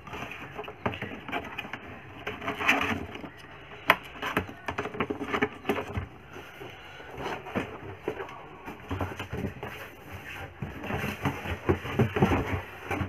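Cardboard laptop box being handled and slid about: irregular scrapes, rustles and knocks, with one sharp click about four seconds in.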